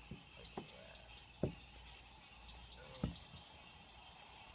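Crickets chirping steadily on a summer night, with three short knocks from handling on the deck boards, the last two the loudest.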